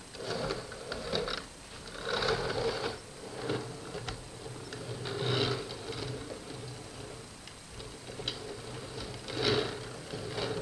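Model train running along the track on a test run past a newly built platform, its small motor and wheels whirring and clattering on the rails. The sound swells and fades about every second over a low steady hum.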